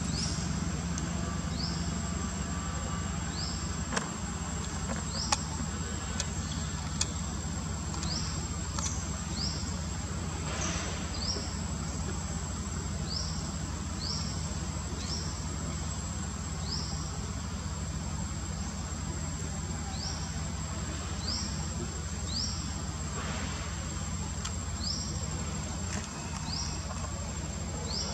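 Outdoor insect chorus: a steady high-pitched insect whine with a short rising chirp repeating about once every second or so, over a low steady hum. A couple of brief sharp clicks come a few seconds in.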